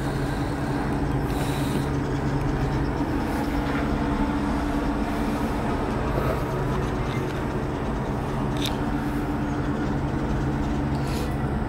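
Steady hum with several constant low tones inside a moving aerial cable car gondola cabin, with a couple of faint clicks about four and nine seconds in.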